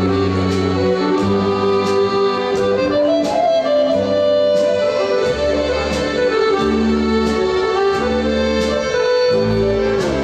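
Serbian folk band playing live: accordion carrying the melody over violin and a drum kit keeping a steady beat.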